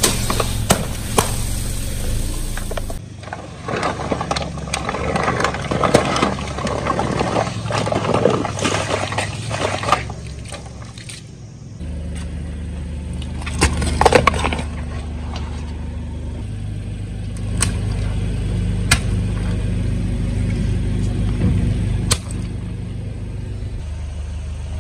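A car's tyre rolling over and crushing rows of objects: irregular crackling and crunching with sharp pops, over the low steady hum of the car's engine. There is one loud burst about fourteen seconds in.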